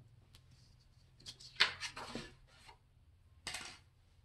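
Several brief paper rustles and light knocks on a tabletop as paper is handled and small objects, a crayon and a metal earring, are set down; the loudest comes about a second and a half in, with one more near the end.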